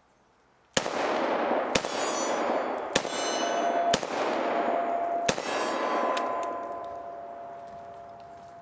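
Five shots from a Smith & Wesson 642 J-frame .38 Special revolver, about one a second with a slightly longer pause before the last, echoing and dying away over a few seconds. Steel targets ring after the hits.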